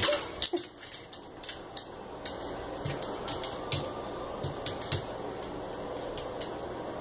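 Puppies' claws clicking and tapping on a vinyl tile floor and against the glass storm door and its threshold, with a few soft knocks, mostly in the first five seconds.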